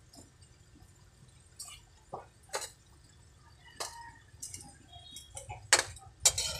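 Metal ladle clinking and scraping against a metal wok as chicken pieces are stirred: scattered sharp knocks, the loudest near the end.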